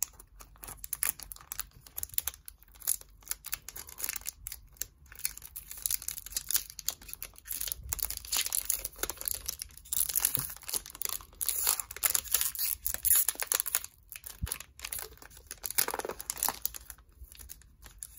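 Foil trading-card booster pack wrapper crinkling and tearing as it is pulled open by hand, with irregular crackles throughout.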